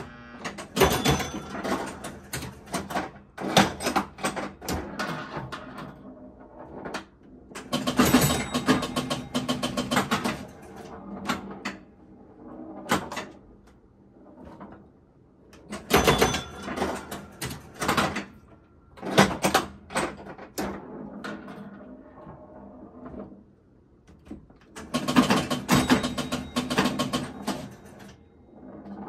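1962 Gottlieb Flipper Clown electromechanical pinball machine in play: bursts of rapid mechanical clacking and knocking from its solenoids, flippers, bumpers, relays and stepping score reels, with a few short quieter gaps between the bursts.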